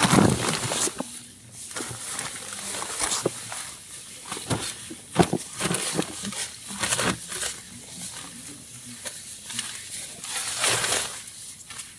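Rustling and shuffling of bedding and clothing as people move and sit up inside a tent, with scattered short knocks and a few low mumbled vocal sounds.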